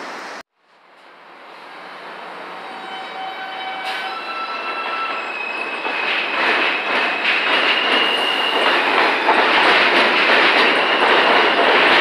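New York City subway train on an elevated line, its rumble and wheel clatter building steadily to loud, with several steady high squealing tones that step up in pitch. The sound drops out for a moment about half a second in before the build begins.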